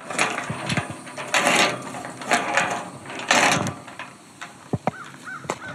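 A locked metal gate being tried and rattled: a series of short metal rattles and clanks over the first few seconds, then a few lighter clicks.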